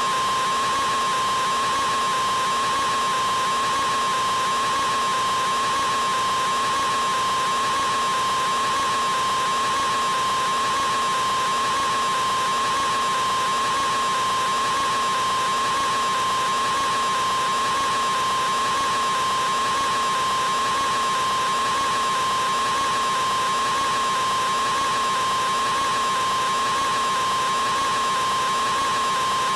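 A man's screamed "aaah", electronically stretched into one unbroken tone that never changes in pitch or loudness.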